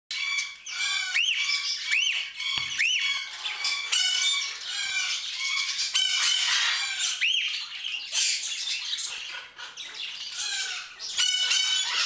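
A flock of cockatiels calling together without pause: overlapping chirps and squawks, with repeated whistled calls that rise and fall in pitch. A single dull knock sounds a little over two seconds in.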